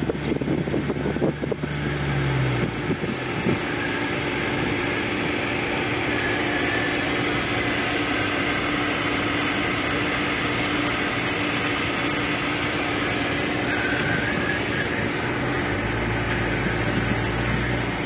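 Car engine and road noise heard from inside the cabin while driving, a steady hum. A low engine tone fades out about two seconds in and comes back near the end.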